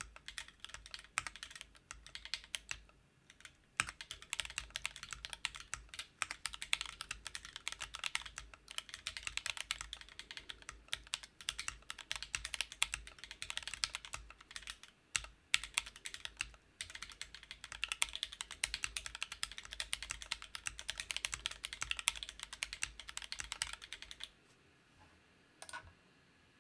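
Fast typing on a custom Sol v1 split mechanical keyboard in a Corian case, fitted with lubed Tealios linear switches and GMK keycaps. The keystrokes come in a dense, even stream with a few short pauses, and the typing stops near the end.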